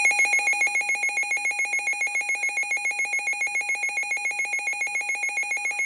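A weather radio's built-in alert alarm sounding for a tornado warning: a shrill electronic tone that pulses rapidly, about seven times a second, switching between a lower and a higher pitch.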